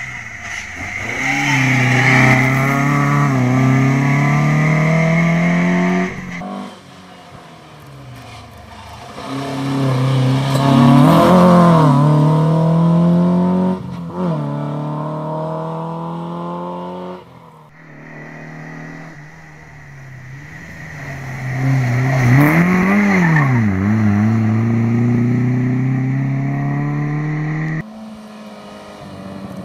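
Alfa Romeo Alfasud rally car's flat-four engine revving hard up through the gears, its pitch climbing and then dropping at each shift, with one close pass where the pitch rises and falls. The sound cuts off and restarts several times, and near the end a second rally car's engine takes over.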